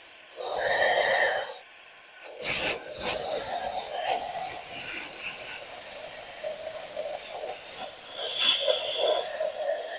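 Compressed air blowing through the PowerSmart 144 cc mower engine with its intake valve open, clearing moisture out. There is a short blast about a second in, then steady blowing from about two and a half seconds on.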